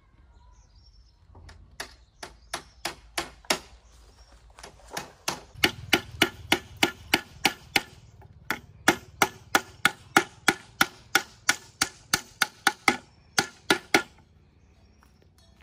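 A rapid run of sharp strikes from a hand tool, starting sparse and settling into about three or four blows a second, with a brief pause midway.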